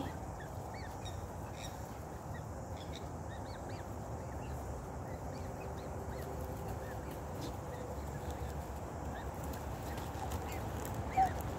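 Black swans feeding at close range give faint, soft honking calls, with scattered small high bird chirps over a low steady rumble.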